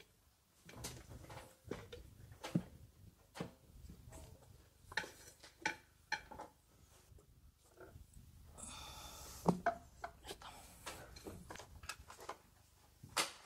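Light clicks, knocks and rubbing from a rubber electric-unicycle tyre being worked by hand around its wheel rim after its bead has been broken. There is a brief scraping rub about nine seconds in.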